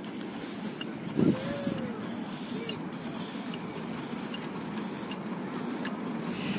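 Miniature live-steam locomotive in New York Central livery chuffing as it pulls a carriage of passengers, its exhaust beats coming about two a second over a steady hiss of steam and the rumble of wheels on the rails. A brief, louder sound stands out about a second in.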